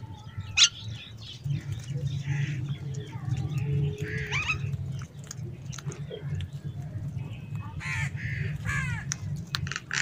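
Crows cawing while feeding, with a few harsh calls about four seconds in and a quick run of calls near the end. Sharp clicks and taps come in between, the loudest about half a second in, over a steady low hum.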